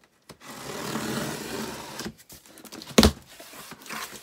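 A blade slicing along the packing tape on a cardboard box, a steady scraping cut lasting about a second and a half, then a few small clicks and one sharp knock about three seconds in, with light rustling of the cardboard after it.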